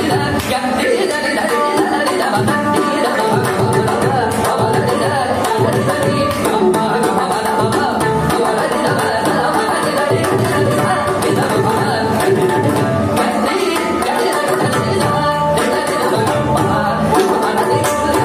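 Carnatic classical music: a male vocalist singing with violin accompaniment over a steady stream of mridangam drum strokes.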